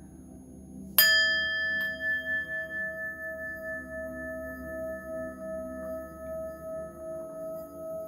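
Singing bowl struck once about a second in, then ringing on with a wavering, pulsing tone.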